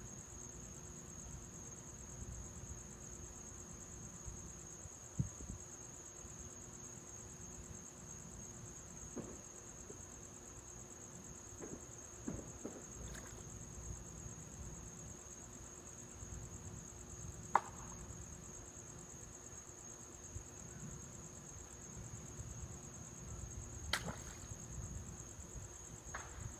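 Faint night ambience: a steady high-pitched insect trill over a low steady hum, broken by a few sharp clicks or pops.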